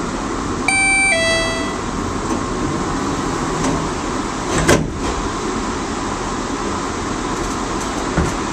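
Two-note falling chime on a DART light rail car, the warning that the doors are about to close. About four seconds in comes a single sharp thump, all over the steady hum of the car's ventilation.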